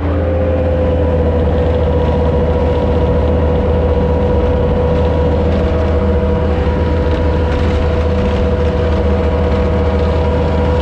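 Vehicle engine running steadily: a deep hum with a steady high whine over it.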